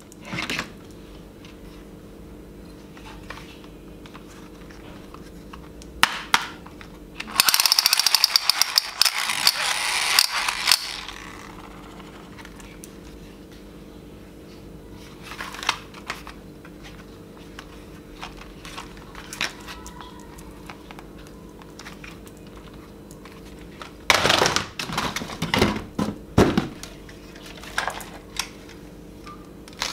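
Plastic toy guns being handled and knocked against each other and the box, clicking and clattering. Two spells of rapid rattling last a few seconds each, one about a third of the way in and one near the end, over a steady low hum.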